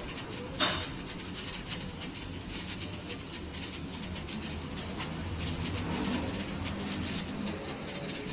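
A single sharp metal strike about half a second in, then a steady fine crackling typical of electric arc welding on the disc.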